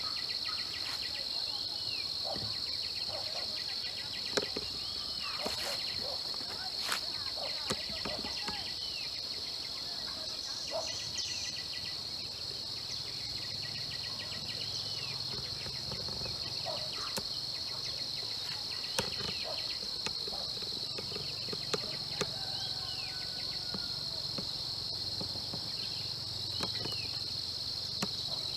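Steady, high-pitched drone of insects such as crickets, broken by scattered sharp clicks.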